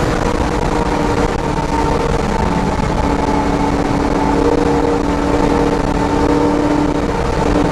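Car engine running at high, nearly steady revs, heard from inside the car as it takes a long corner on a race track, over a steady bed of road and wind noise.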